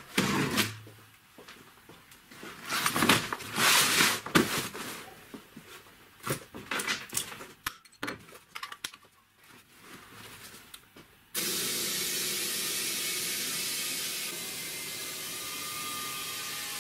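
Handling clatter and rustling of fabric, then about eleven seconds in a steady hiss of air starts suddenly as compressed air from a homemade compressor's hose flows into a snow tube, inflating it.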